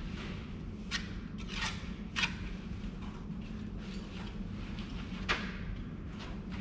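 A brick being set on its mortar bed: a few short scrapes and knocks in the first couple of seconds, then a single sharper click as the bricklayer gets up, over a steady low hum.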